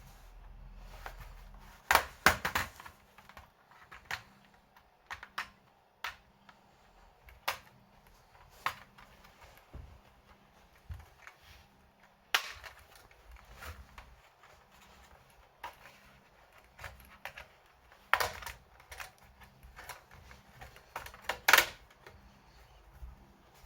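Irregular small clicks, taps and knocks of hands and tools working on an opened laptop during an SSD swap, with a louder clatter about two seconds in and two more near the end.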